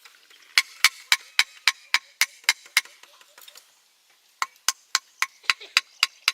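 A hand tool striking in two rapid runs of sharp, evenly spaced blows, about four a second, with a short pause between the runs.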